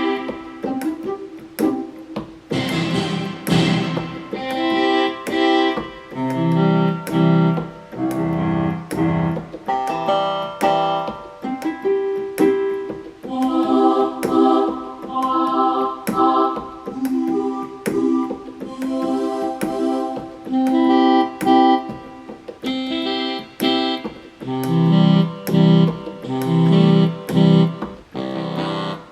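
Yamaha PSR-350 keyboard sounding one preset voice after another, piano, electric piano and organ-like tones among them. Short notes and chords come in a steady run, each starting and dying away within about a second.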